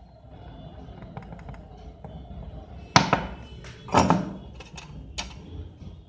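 Repair tools being handled on the workbench: two loud knocks with a brief rattling tail about three and four seconds in, and a few lighter clicks between them.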